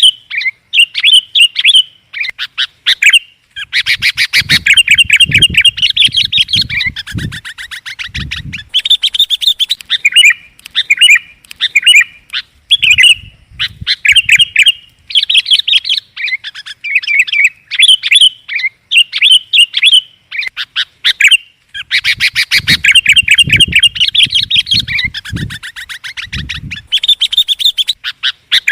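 Sooty-headed bulbul (kutilang) calling over and over as a bird-lure recording: short bubbly chirped phrases, broken by two longer stretches of fast, dense chattering.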